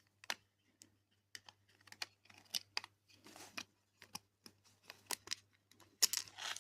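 Irregular light clicks and taps of small plastic robot-kit parts and tiny screws being handled and fitted into the casing, with a brief rustle near the end.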